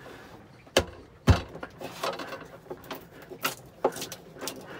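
Knocks and clicks of hand wiring work with a screwdriver on an RCD's terminals: two sharp knocks about a second in, then a run of lighter clicks.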